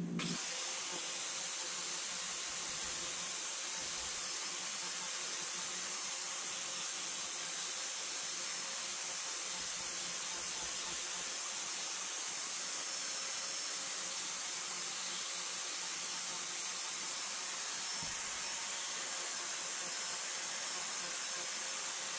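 Workshop machinery running steadily: an even electric whir with a strong high hiss that does not change throughout.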